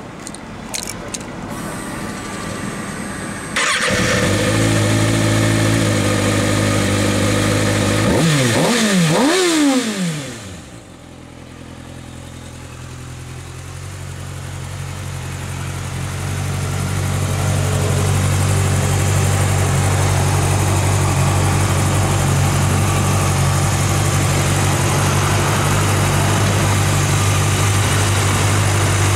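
Kawasaki ZX-6R inline-four engine breathing through a Delkevic slip-on exhaust. After a few clicks it starts about three and a half seconds in and idles high, and it is blipped twice around eight to ten seconds. It then settles into a steady idle that grows louder until about halfway and holds.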